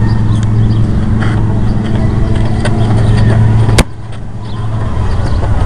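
A single sharp thump about four seconds in, as a rubber kickball is kicked, over a steady low hum that drops away right after the kick.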